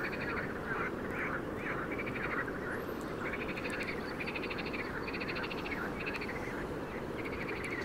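Frogs calling: a run of short calls, each a rapid string of pulses, about one a second, over steady low background noise.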